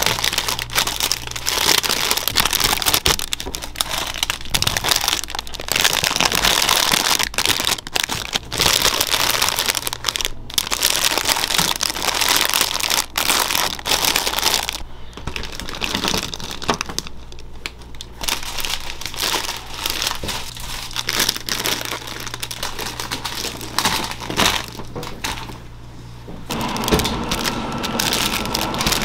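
Clear cellophane bags crinkling as bagels packed in them are handled and shifted about in a plastic display bin.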